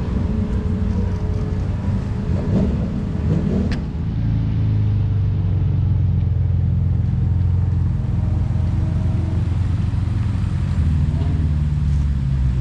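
Car engine running with a steady low rumble, setting in about four seconds in, after faint voices and a single sharp click.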